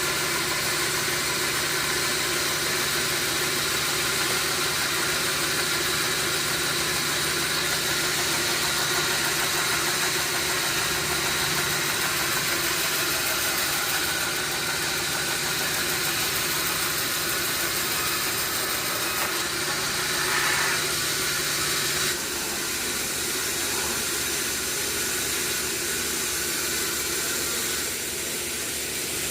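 Sawmill machinery running steadily with a constant mechanical drone and hiss. About 22 seconds in, a low hum drops out and the sound gets slightly quieter.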